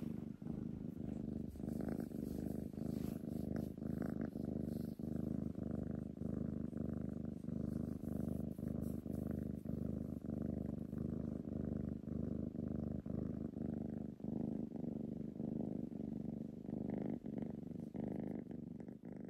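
A domestic cat purring steadily while being stroked, the purr pulsing in an even rhythm of about two beats a second as it breathes in and out.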